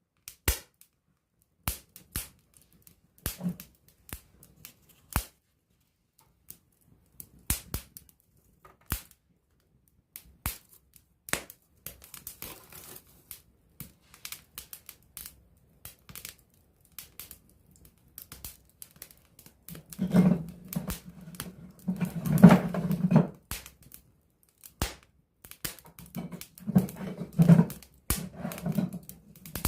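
Wood campfire crackling at close range: sharp, irregular pops and snaps with near-quiet gaps between. About two-thirds of the way through, and again near the end, a louder low rushing sound comes in under the crackle.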